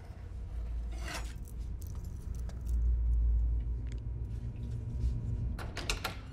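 Metal keys jangling and clicking against a door lock and handle near the end, as a door is opened, over a deep low rumble that swells in the middle. One sharp chop of a knife on a wooden cutting board comes about a second in.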